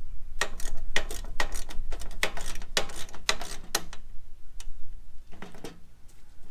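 Hand ratchet wrench clicking in quick strokes, about four clicks a second, as small bolts are tightened down, then a short pause and a few more clicks.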